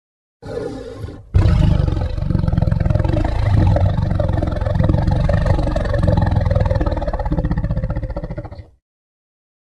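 Designed monster roar sound effect: a short, quieter sound, then a long, loud, rough roar heavy in the low end that lasts about seven seconds and cuts off, with silence before and after.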